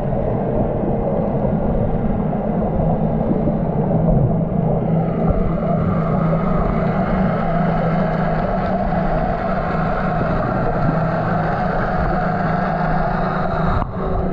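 Boat engines heard underwater: a steady low hum with a constant wash of noise, dipping briefly near the end.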